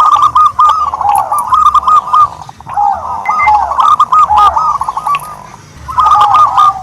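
Turtledove cooing: loud phrases of quick, short repeated notes, with short pauses about two and a half seconds and five and a half seconds in.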